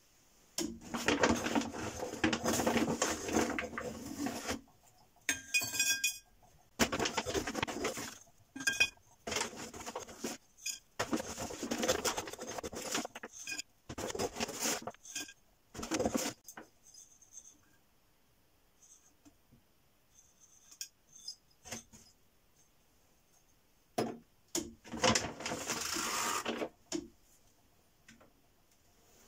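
Potassium chloride powder scooped out of a plastic bag and poured into a glass jar, in several rustling, sliding bursts with pauses between. Scattered clinks against the glass, one short ringing clink about five seconds in.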